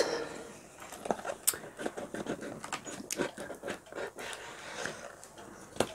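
Small white cardboard box being handled and opened by hand: scattered light taps, scrapes and rustles.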